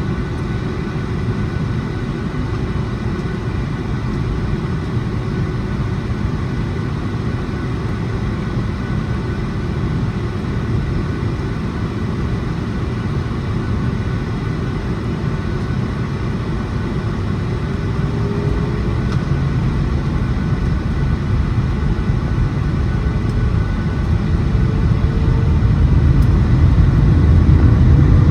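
Boeing 757-300 jet engines with a steady low rumble; in the last third a whine slowly rises in pitch and the sound grows louder, as thrust comes up for takeoff.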